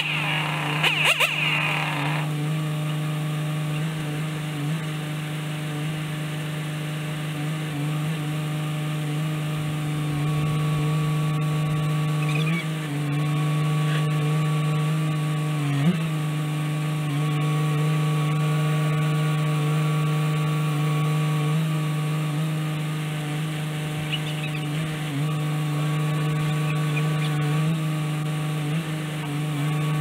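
Crane truck's engine running steadily to drive the boom hydraulics while a cut section of trunk is swung and lowered, its pitch shifting slightly as the load on it changes.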